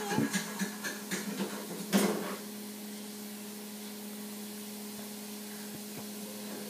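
Handling noise of the recording camera: rustles and light knocks, with one sharper knock about two seconds in, then only a steady low hum.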